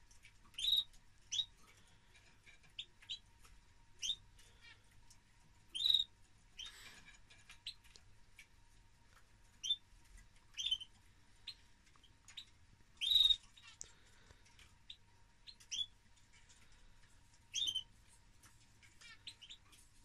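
Caged finches, a male European goldfinch housed with a female canary, giving short, high chirps and call notes at irregular intervals, about one every second, with no sustained song.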